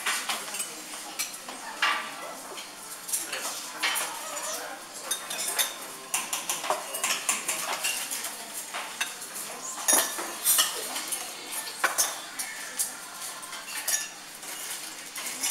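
Clatter of cutlery against ceramic plates and dishes: many irregular clinks and taps, with a few sharper ones about ten to thirteen seconds in.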